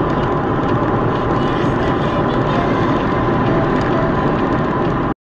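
Steady engine and tyre noise inside a moving car, picked up by its dashcam microphone while driving on a snowy road. It cuts off abruptly near the end.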